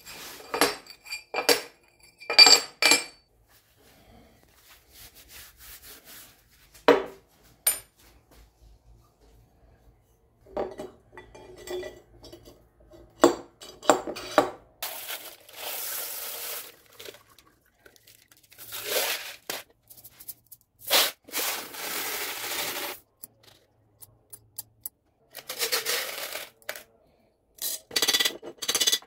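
Steel strips and a square steel tube being handled on a steel-topped workbench: metal pieces clinking and clattering against each other and the bench. There are several longer rubbing sounds, and a quick run of light hammer taps on the tube near the end.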